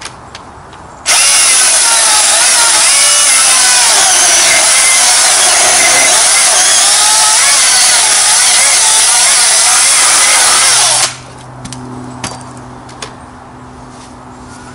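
Milwaukee M18 brushless cordless chainsaw cutting straight through a log with two knots. It starts suddenly about a second in and runs loud and steady for about ten seconds. Its pitch wavers as it bogs a little at the beginning but cuts right through, then it stops suddenly.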